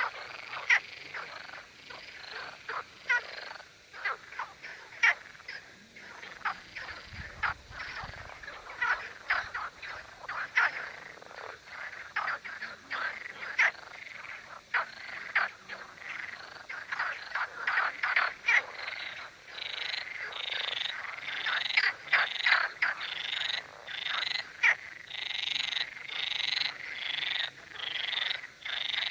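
A chorus of male frogs croaking: many short, sharp calls overlapping irregularly, growing denser and more continuous near the end. The males call against one another to attract females.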